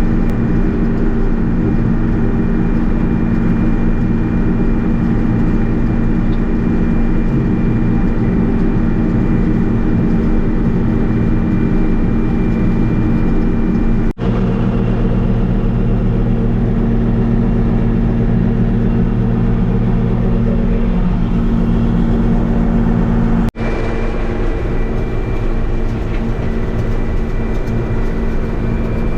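John Deere 6620 combine running, a loud steady engine and machinery drone with a faint high whine. The sound drops out abruptly twice, about 14 and 23 seconds in, and resumes with a slightly changed tone each time.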